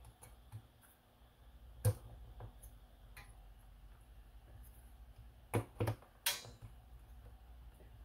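Sharp plastic clicks and knocks as a drive wheel module is pressed into its housing in a Neabot robot vacuum's plastic chassis. There is one click about two seconds in, then three more in quick succession between five and a half and six and a half seconds.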